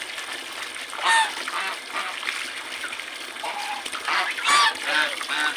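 Domestic geese honking, several calls, the loudest about a second in and a cluster around four to five seconds in, over the steady splash of running water.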